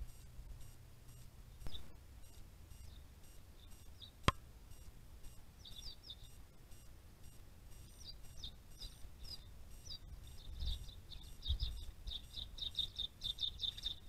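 Short, high chirps of a small bird, starting about five seconds in and quickening into a fast run of notes near the end, over a low rumble. A single sharp click about four seconds in.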